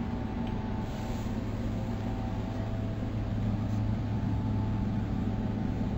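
A steady low mechanical hum with a faint higher whine above it, unchanging throughout.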